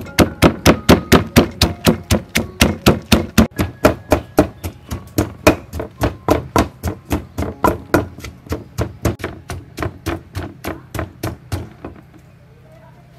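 Wooden pestle pounding red chilies and garlic in a mortar: a steady beat of about four strikes a second that stops about twelve seconds in.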